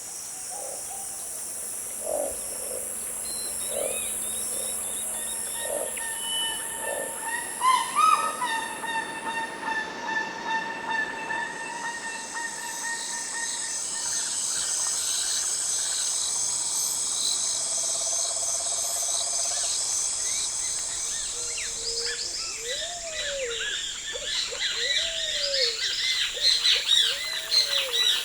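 Tropical forest ambience: a steady high-pitched insect drone with several lower held insect tones, under birds calling. There are a few low hoots in the first several seconds, and a chorus of chirps and arching whistled calls builds toward the end. The insect drone shifts in pitch about ten seconds in.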